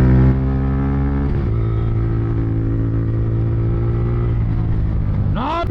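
A small motorcycle engine running steadily on the move. Its note dips briefly about a second and a half in and sweeps quickly upward near the end.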